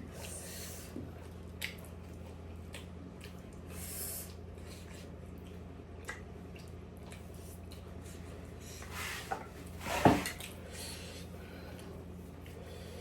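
Close-up eating sounds: wet squishing mouth noises and scattered soft clicks, with a louder squelch about ten seconds in, over a low steady hum.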